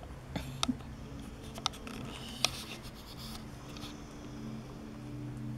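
Two-week-old puppies nursing on their mother: soft scratchy rustling and a few sharp clicks, the loudest about two and a half seconds in, over a steady low hum.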